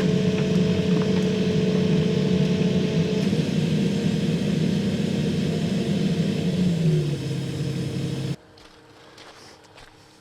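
Cat 308E2 mini excavator's diesel engine running hard under hydraulic load, with a steady higher whine over the engine note. Its pitch sags a little about seven seconds in, then the sound cuts off abruptly a little past eight seconds, leaving only faint outdoor sound.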